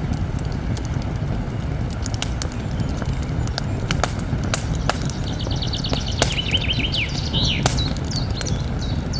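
Campfire crackling, with frequent sharp pops and snaps over a steady low rush. A bird sings rapid trills and chirps from about halfway through.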